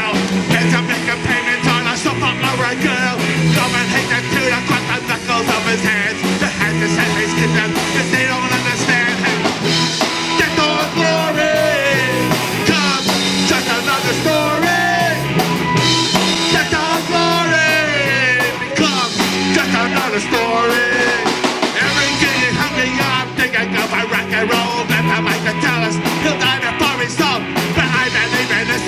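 Punk rock song: a singer over a loud, driving band of drums and guitars, with the vocal line strongest through the middle stretch.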